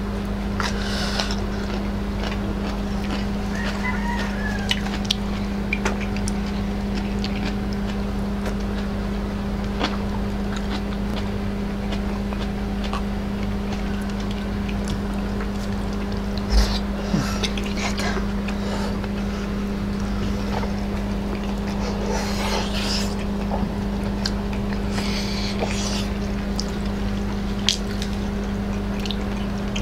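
Close-miked chewing, lip smacks and small wet mouth sounds of people eating fatty boiled pork and crisp lettuce leaves, with scattered clicks, over a steady low electrical hum.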